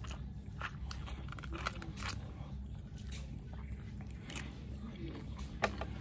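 A man biting into and chewing a ripe cashew apple close to the microphone: scattered short wet clicks and smacks of the juicy fruit, with one sharper click near the end.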